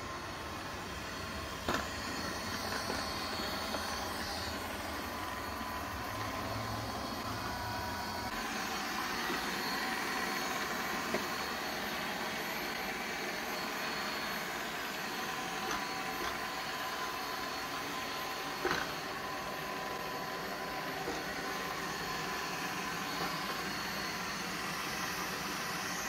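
ZOOZEE Z50 robot vacuum running steadily, its motor and brushes making a steady whirring. The low hum drops away about eight seconds in. Two brief knocks stand out, one near the start and one about two-thirds through.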